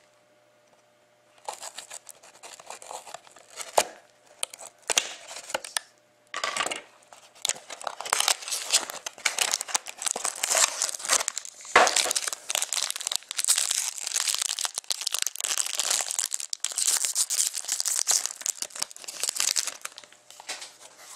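Wrapping and cardboard of a sealed hockey-card box being slit, torn and crinkled open. The crackling starts after a short quiet moment and grows dense through the second half.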